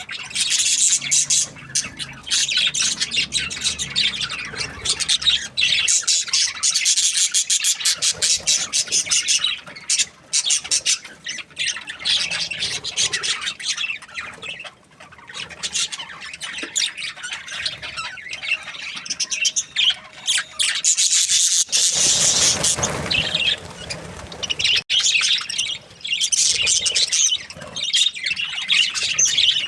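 Budgerigars chattering and chirping continuously: rapid high warbles, squawks and chirps from several birds overlapping, with a few brief lulls.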